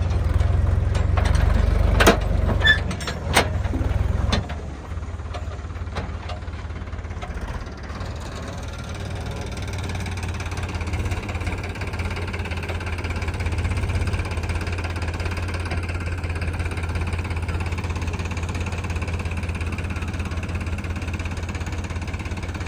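Tractor's diesel engine running, louder for the first four seconds or so with a few sharp metal clanks as the loaded trolley rolls over rough ground. It then settles to a steady idle.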